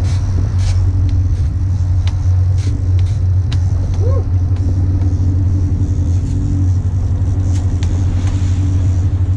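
Fishing boat's engine running with a steady low drone, with water rushing along the hull and a few sharp clicks.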